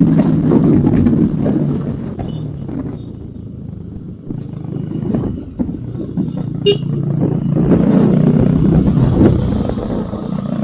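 Motorcycle engine and exhaust running, easing off to a lower level for a few seconds around the middle, then picking up again.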